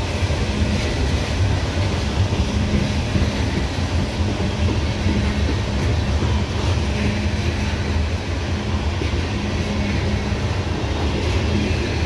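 Loaded coal hopper cars rolling past: a steady rumble of steel wheels on the rails with a low hum, continuing without change.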